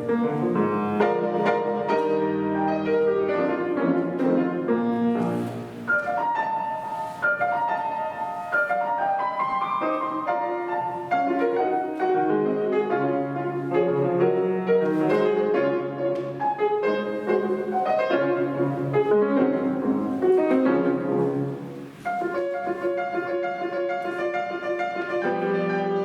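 Solo piano playing a classical piece: a steady stream of notes with a brief lull about 22 seconds in.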